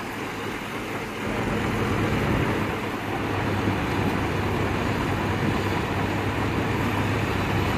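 Heavy diesel engine running under load as a New Holland tractor tows a bogged-down truck out of deep mud. It is a steady hum that gets louder about a second and a half in and then holds.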